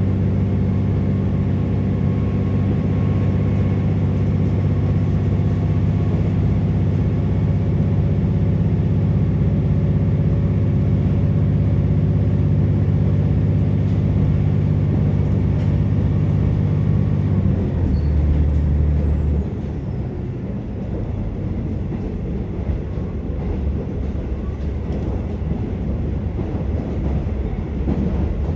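KiHa 47 diesel railcar heard from inside the passenger cabin, its engine running steadily under power. A little over halfway through the engine note drops away as power is shut off. The railcar then coasts with a rumbling of wheels on rail and light clicks.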